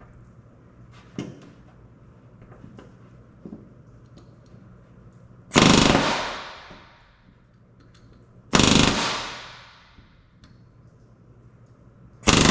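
Pneumatic rivet gun hammering solid rivets into the aluminium skin of a Van's RV-10 horizontal stabilizer against a tungsten bucking bar, in three short bursts about three seconds apart, each ringing away in the metal structure.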